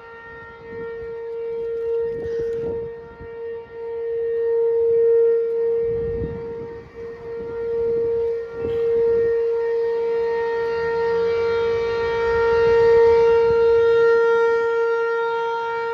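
Outdoor tornado warning siren sounding its monthly test: one steady, really loud tone that swells and fades every few seconds.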